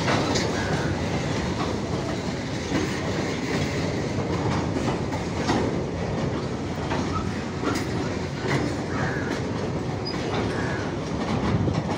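Long goods train of tank wagons rolling past at steady speed, steel wheels clattering over the rail joints in an irregular run of clicks over a continuous rumble.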